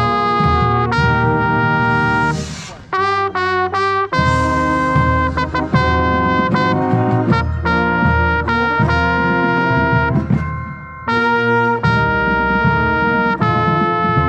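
Marching band brass playing a show piece, with a trumpet right at the microphone standing out. Long held chords give way to a quick run of short notes about three seconds in, and the band stops briefly near eleven seconds before coming back in.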